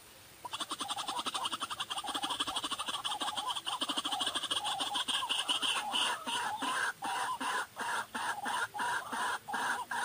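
White-breasted waterhen calling its harsh, croaking 'ruak-ruak'. After a brief gap about half a second in, a fast rasping run of notes starts. About halfway through it settles into separate repeated calls, roughly three a second.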